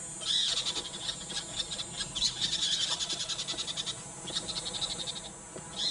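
Tree squirrel giving its rapid chattering alarm call, fast runs of sharp high clicks in several bouts with short pauses: scolding a leopard below it.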